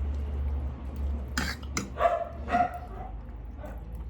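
A dog barking, a few short barks about half a second apart.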